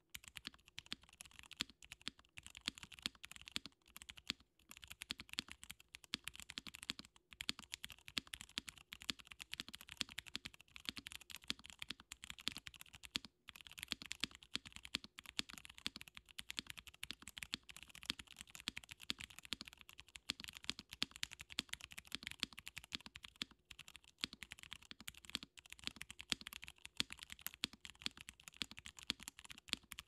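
Fast, continuous typing on a custom Wooting60 mechanical keyboard with broken-in Cherry MX Purple switches, a carbon fibre plate, gummy O-ring mount and doubleshot ABS keycaps: a dense stream of keystroke clacks, broken by a few short pauses.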